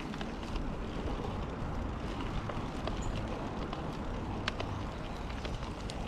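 Yeti SB5 mountain bike riding along a dirt trail: a steady low rumble of tyres on the ground, with scattered short, sharp ticks and clicks.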